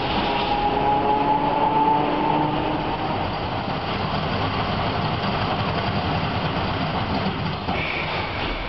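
Tram running on its rails, heard from inside the passenger car: a steady rumble and rattle, with a whine that fades after the first two seconds or so. A high-pitched squeal comes in near the end.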